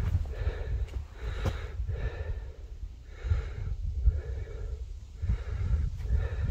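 A man breathing hard and evenly, about one and a half breaths a second: out of breath from climbing. Low wind rumble on the microphone underneath.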